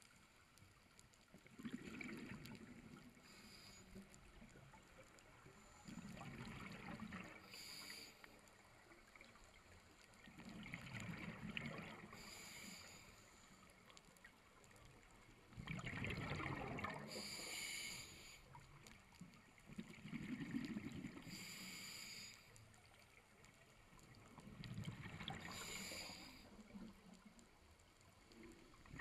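Scuba regulator breathing heard underwater: a bubbling, rumbling exhale followed by a short hissing inhale, repeating about every four to five seconds, six breaths in all.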